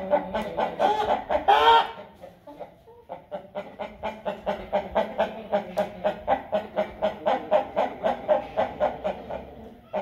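Light Columbian Brahma chickens clucking in rapid, evenly repeated calls, about four a second, with one louder drawn-out call about a second and a half in and a short lull after it.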